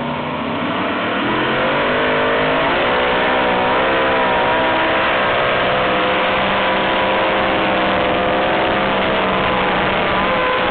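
Multi-engine modified pulling tractor at full throttle dragging the weight sled. The engine note climbs over the first few seconds, holds loud and steady, and begins to fall away at the very end.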